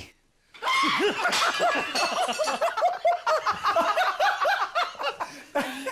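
High-pitched laughter: a long run of quick, bouncing laughs, starting about half a second in after a brief silence.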